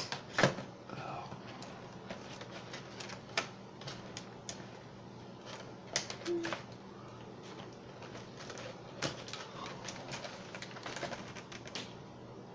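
Irregular light clicks and taps with faint rustling, from hands handling plastic toy packaging and a fashion doll; the sharpest click comes about half a second in.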